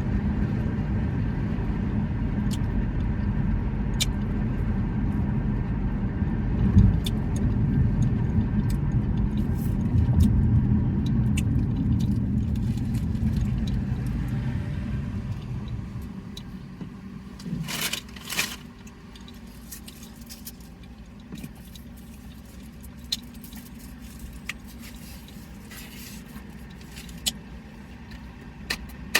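Steady low rumble of a vehicle, dropping to a much quieter background about halfway through. Scattered small clicks and two short noisy crackles come near the middle.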